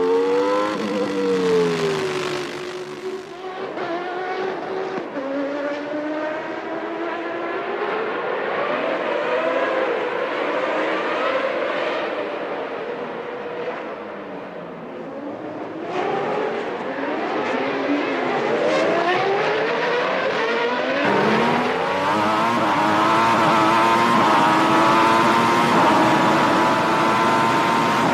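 1993 Formula One race car engines revving up and down through gear changes as cars run the street circuit, several engine notes overlapping. About 21 s in the sound jumps louder, with a high engine note climbing steadily through the gears.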